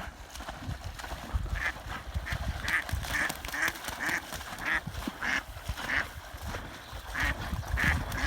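A duck quacking over and over, short quacks about two a second, starting about a second and a half in.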